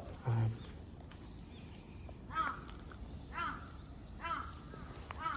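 A crow cawing four times, about one caw a second, over a faint outdoor background.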